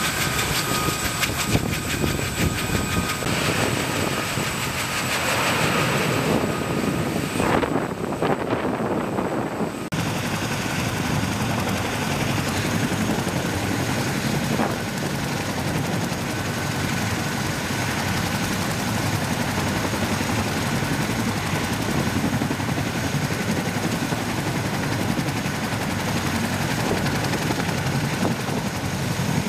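Boeing CH-47 Chinook twin-turbine tandem-rotor helicopter running on the ground, both rotors turning, with a steady high whine over the rotor noise. The sound changes abruptly about ten seconds in.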